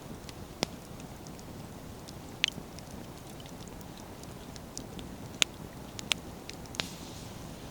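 Wood bonfire burning: a steady low rush of flames with the burning firewood crackling and snapping, five sharp loud pops scattered through among fainter ticks.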